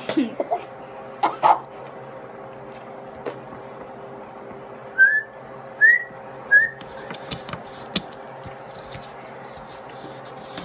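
Someone whistling three short rising notes, about five seconds in, each under a second apart. Light clicks and rustles from handling small candies come before and after, over a steady low hum.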